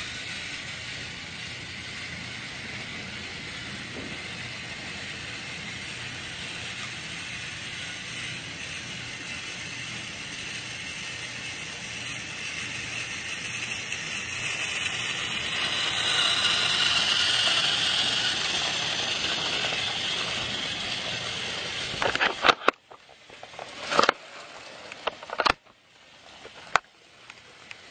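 Battery-powered toy train's motor and gears whirring steadily as it runs along plastic track, growing louder in the middle. Near the end the whirring stops and several sharp plastic clacks and knocks follow.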